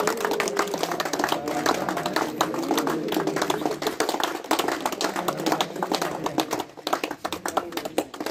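Several people clapping by hand in an irregular patter, with voices over it in the first half. The clapping thins out and gets quieter near the end.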